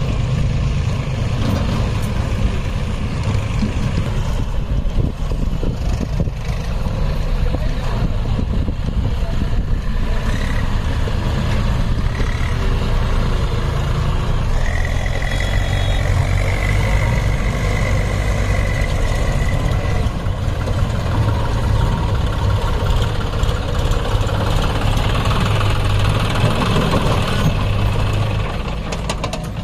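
Diesel engines of a JCB 3DX backhoe loader digging and loading soil and a John Deere tractor, running with a steady low drone. A faint high whine comes in for a few seconds around the middle.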